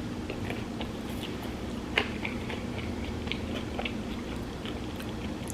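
A person chewing food close to the microphone: soft, irregular crunching and mouth clicks, with one sharper crunch about two seconds in.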